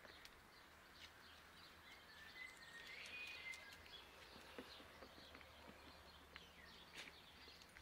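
Near silence: faint outdoor ambience with a few faint bird chirps about two to three seconds in, and a few faint ticks.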